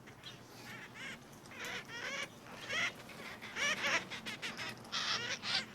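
Cherry-headed conures (red-masked parakeets) giving a string of harsh, screechy calls, several birds calling in quick succession and loudest near the end.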